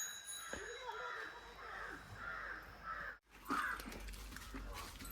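Crows cawing over and over, harsh calls about two a second, broken off briefly about three seconds in before the calls carry on.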